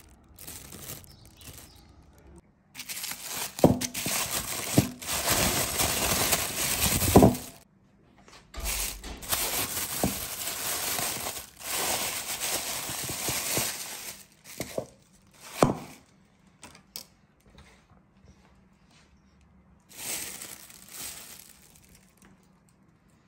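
Clear plastic bag crinkling and rustling as it is handled and pulled off a bowl of dough, in long noisy stretches with a few sharp knocks.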